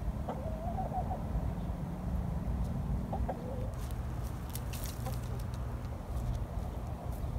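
Hens clucking: a drawn-out, wavering cluck early on, then a pair of short clucks around three seconds in and a faint one later, over a steady low rumble.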